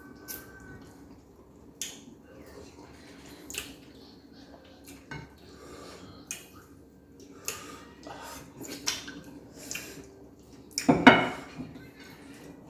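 Scattered clinks and scrapes of dishes and eating utensils during a meal, with a louder cluster of clatter about eleven seconds in.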